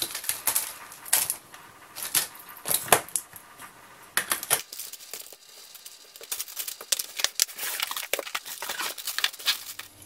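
Small items being packed into a hard black plastic case: plastic-wrapped first-aid packets crinkling, and a metal stove and other small objects clicking and knocking against the plastic, in irregular clusters of sharp clicks and rustles.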